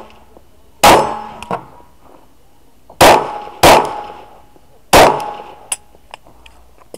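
Four shots from a Glock pistol: a single shot about a second in, a quick pair near the middle and another single shot about five seconds in, each followed by a ringing echo that dies away. A few faint sharp ticks follow the shots.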